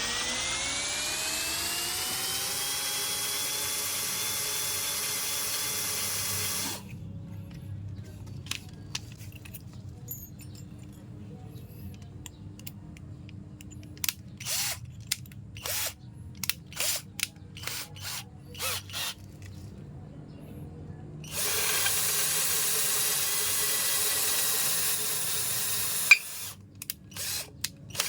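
Power drill running: its whine climbs in pitch as it spins up and then holds steady for several seconds before stopping. This is followed by a series of short trigger bursts, another steady run of a few seconds, and a few more short bursts near the end.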